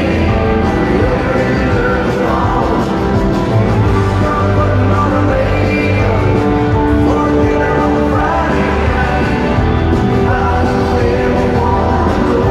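Live country band playing with a male lead vocal, loud and steady.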